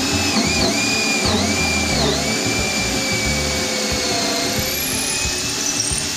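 Cordless drill running as it bores a starter hole into a wooden table top, its motor whine dipping in pitch a few times in the first two seconds as the bit bites, then holding steady.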